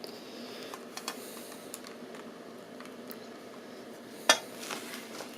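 A few faint clicks and taps of hands handling a USB cable and charger, the sharpest about four seconds in, over a steady low hum.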